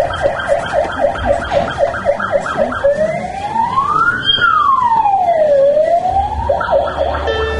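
Electronic emergency siren in a rapid yelp, switching about three seconds in to one slow wail that rises and falls, then back to the rapid yelp near the end.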